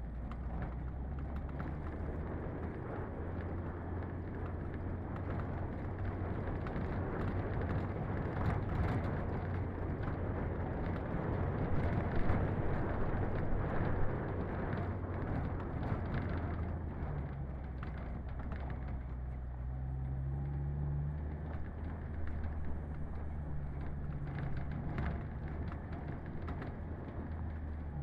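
Daihatsu Feroza 4x4 driving slowly over a dirt and grass track: a steady low engine drone under the rumble of tyres on the track. There are scattered knocks and rattles. The noise is loudest around the middle, and the engine note shifts a little past halfway.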